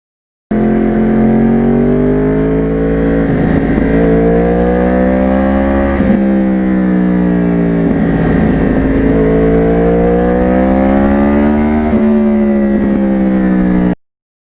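2009 Yamaha R1 crossplane inline-four with an aftermarket exhaust, under way: the engine pitch climbs and drops several times as it accelerates, shifts and rolls off. It starts abruptly and cuts off suddenly near the end.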